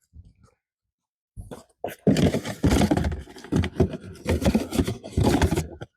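Irregular scraping, rustling and knocking of the side-by-side's plastic air-box lids and covers being handled and fitted back in place. It starts about a second and a half in, after a short quiet spell.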